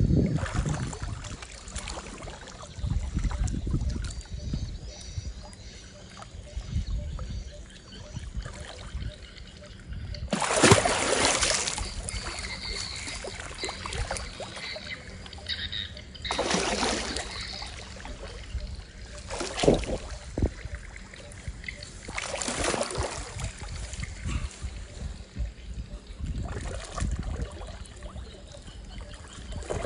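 Water splashing in about five separate surges, the longest about ten seconds in, with quieter low noise between them.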